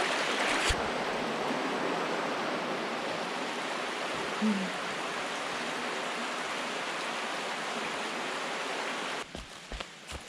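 Steady rushing of running water, like a stream or small waterfall. It cuts off suddenly about nine seconds in, and a few light knocks follow.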